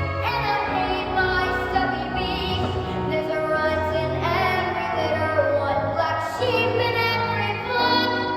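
A high singing voice carrying a melody over instrumental accompaniment, with some held notes that waver.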